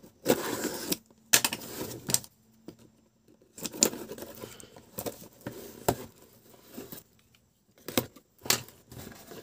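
Snap-off utility knife slitting packing tape on a cardboard box in several scraping strokes with short pauses between them, followed by the cardboard flaps being pulled open with a few sharp clicks and rustles near the end.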